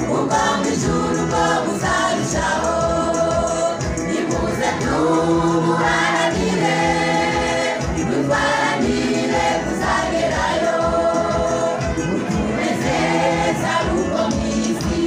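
A choir of men and women singing a gospel song, with one woman singing into a microphone.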